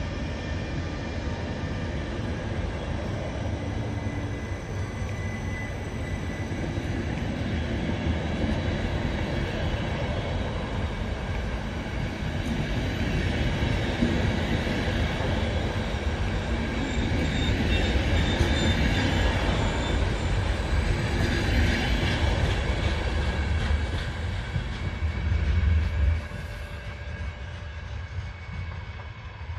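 ÖBB Intercity passenger coaches rolling past close by as the train pulls out, a steady rumble of wheels on the rails that grows louder and then drops off sharply as the last coach goes by about 26 seconds in.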